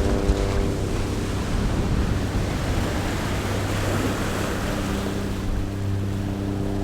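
Ocean waves rolling in: a broad rushing wash that swells over the first few seconds and eases off near the end. Soft sustained low music tones drone underneath.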